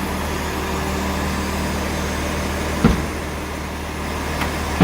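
Engine running steadily, with two short knocks, one about three seconds in and one near the end.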